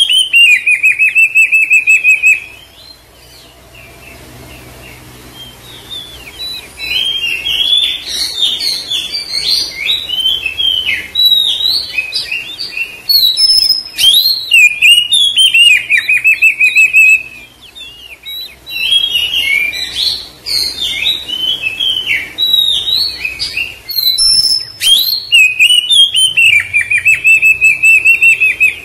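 Oriental magpie-robin singing loudly in bouts of varied whistled notes and fast rattling trills. It pauses about three seconds in and again near the middle.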